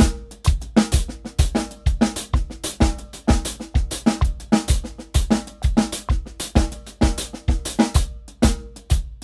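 Drum kit played at 128 BPM in a steady, busy pattern of bass drum, snare and cymbal strokes. This is a practice exercise that alternates time-groove bars with single paradiddle permutations played as eighth-note triplets.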